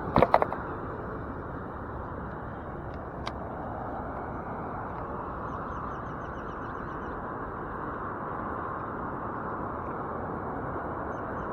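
Steady background hum of nearby road traffic, with small birds chirping faintly in short repeated trills a few times. A few sharp clicks sound near the start and again about three seconds in.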